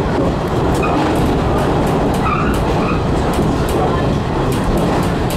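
JR Kyushu 415 series electric multiple unit running along the line, heard from inside the front car: a steady rumble of wheels and running gear with scattered light clicks.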